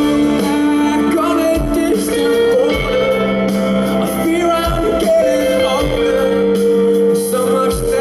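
Live rock band playing loudly, with a male singer singing into a handheld microphone over long held notes.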